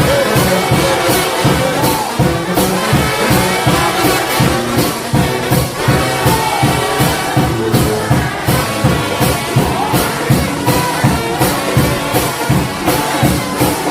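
Trombone shout band playing gospel music: massed brass horns over a steady drum beat.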